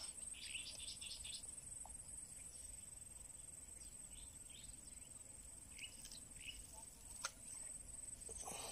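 Quiet outdoor ambience: a steady, high-pitched pulsed trill like an insect's, with scattered faint short chirps and a single sharp click about seven seconds in.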